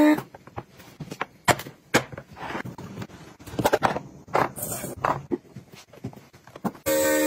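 Plastic food-storage containers and lids being handled on a stone countertop: a string of irregular sharp clicks and knocks with a few short scrapes, the loudest about one and a half seconds in and again past four seconds.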